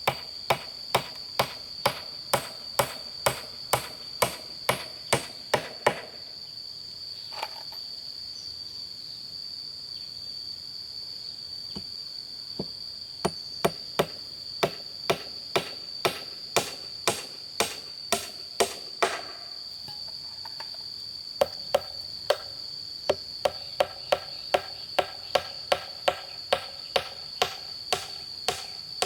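Hand-tool blows on bamboo, about two a second, in three runs separated by pauses of several seconds, typical of hammering during bamboo construction. A steady high-pitched insect drone runs underneath.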